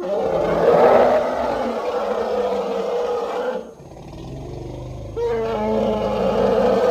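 Elephant calling: a loud, harsh call that starts suddenly and holds for over three seconds, drops to a quieter, lower sound for about a second and a half, then rises into another loud call about five seconds in.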